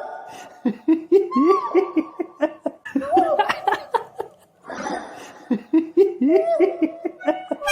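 A person laughing in several bursts of rapid, short 'ha'-like syllables, with a brief breathy burst about five seconds in.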